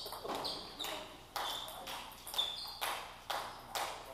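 Table tennis balls clicking off tables and bats: a string of sharp, short clicks, roughly two a second, some with a brief ping.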